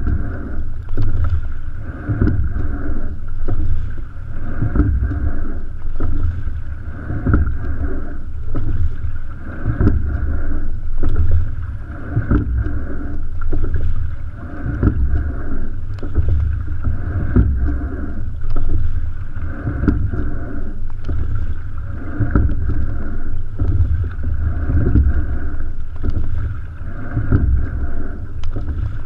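Single racing scull under way at a steady rowing rhythm: a low rush of water along the hull with some wind on the microphone, and a knock from the oars and oarlocks at each stroke, about every two and a half seconds.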